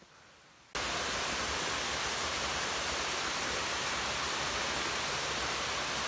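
Steady rush of falling water from a waterfall and its stream, cutting in abruptly under a second in after near quiet.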